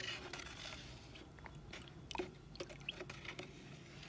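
Wooden stick stirring thick white paint in a bucket: quiet wet squelching and scraping, with scattered faint clicks.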